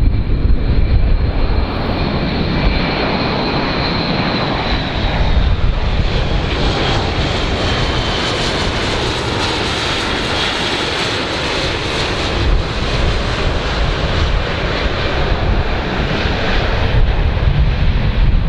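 Airbus A400M's four turboprop engines with eight-bladed propellers during a low flypast: a loud, steady roar with a high whine that falls a little in pitch in the first few seconds as the aircraft passes.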